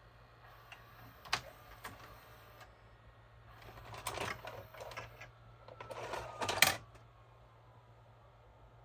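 Small mechanical clicks and rattling from the VHS/DVD recorder being worked on: two single clicks, then two short bursts of clattering a few seconds in. A faint low hum runs underneath.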